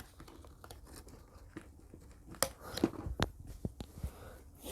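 Hand tools being handled and put back into a fabric tool bag: a faint rustle, then a quick run of sharp clicks and knocks about halfway through.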